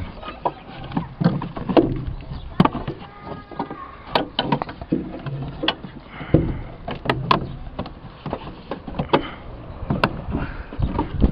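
Irregular knocks, clicks and scraping of hard plastic and metal as a car battery is worked loose and pulled from its tray in the engine bay.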